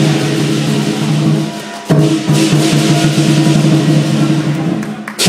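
Live lion dance percussion: the large lion drum beating a fast, dense rhythm with clashing cymbals and a ringing gong. The playing eases off briefly just before two seconds in, then comes back with a loud hit.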